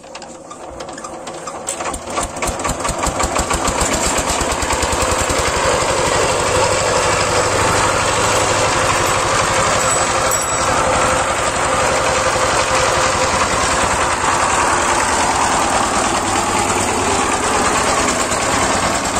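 Single-cylinder diesel engine of a walking tractor (power tiller) starting up. Its firing strokes speed up and grow louder over the first few seconds, then it settles into a steady run while pulling a loaded trolley.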